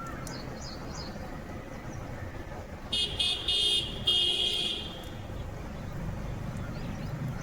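A vehicle horn honks twice in quick succession about three seconds in, high-pitched, over a steady low background rumble.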